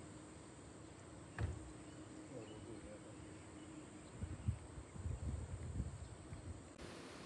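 Quiet outdoor airport-side ambience: a faint steady hum that stops near the end, a single thump about a second and a half in, and low gusts of wind buffeting the microphone from about four seconds in.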